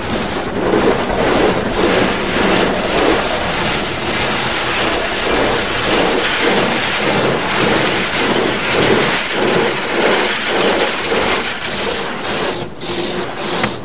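Automatic car wash heard from inside the car: cloth brushes rubbing and slapping over the windows and body in a rhythmic swish, about two strokes a second, with water running on the glass.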